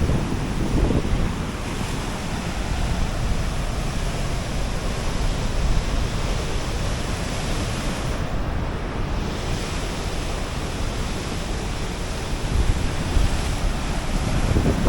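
Water released from Horseshoe Dam rushing out fast and churning through rapids on the Verde River: a steady, even rush of whitewater, with wind buffeting the microphone.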